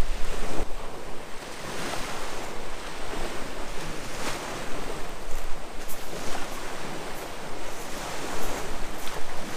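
Sea surf washing onto the shore, with wind blowing across the microphone as a steady rushing noise.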